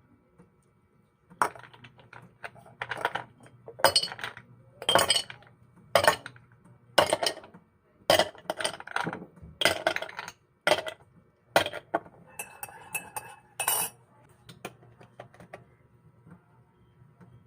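Dishes and kitchenware clinking and clattering: a quick run of sharp knocks and clinks that thins out near the end, over a faint steady low hum.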